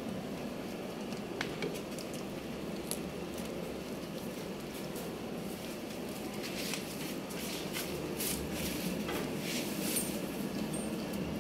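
A goat chewing and tearing leaves off a leafy green branch, with crisp crackling and rustling that comes thickest in the second half, over a steady low hum.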